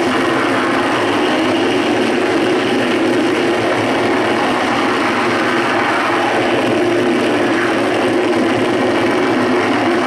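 Live noise music from a large tabletop rig of chained effects pedals: a loud, steady wall of droning noise with a strong low-middle band, changing little while knobs are turned.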